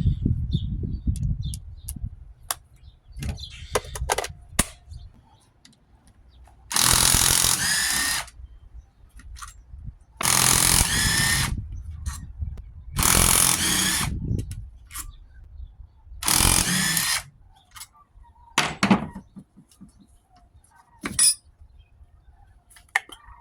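Handheld power tool run in four short bursts of a second or so each, with scattered metal clicks and knocks between them, while a scroll compressor is being dismantled.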